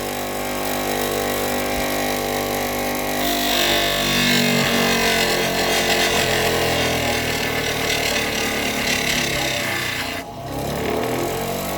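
Electric power tool grinding and sanding a wooden walking stick, running steadily with a motor whine. From about three seconds in a harsher grinding hiss rises as it bites into the wood, and it dips briefly near the end.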